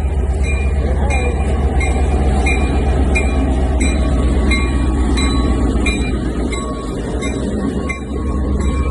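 North Shore Scenic Railroad passenger train rolling past close by: a steady, loud low rumble of the cars on the rails, with short high-pitched squeals recurring about twice a second.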